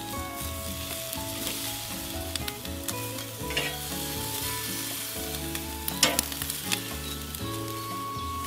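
Rib eye steaks sizzling on a charcoal grill grate, with metal tongs clicking against the grate a few times near the middle as the steaks are turned. Soft background music plays underneath.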